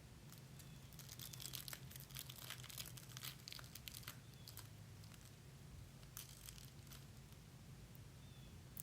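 Faint crinkling and tearing of a foil Pokémon booster pack wrapper being opened, in quick clusters of rustles from about a second in to four seconds and again briefly around six seconds, over a steady low hum.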